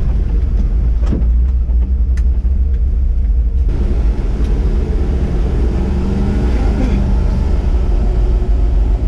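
Lifted square-body Chevy truck's swapped 6.0 L LS V8 running under load, driven off-road in four-wheel drive, with a steady low rumble. A few sharp knocks come in the first couple of seconds, and the noise grows louder and fuller about three and a half seconds in.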